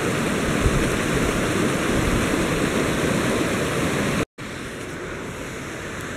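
Mountain creek rushing over boulders in a steady, loud wash of water noise. About four seconds in it cuts off abruptly and gives way to a quieter steady hiss.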